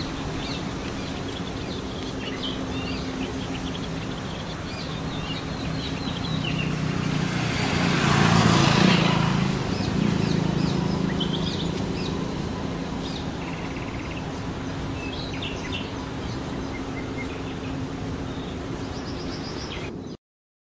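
Outdoor ambience of small birds chirping and calling among trees, over a steady low hum. About six seconds in, a louder rushing noise swells, peaks and fades away over a few seconds, like a vehicle passing. All sound cuts off suddenly near the end.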